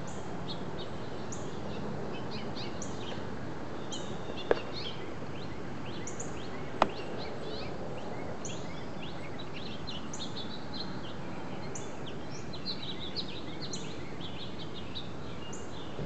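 Small birds chirping in many short, high calls throughout, over steady background noise, with two sharp clicks about four and a half and seven seconds in.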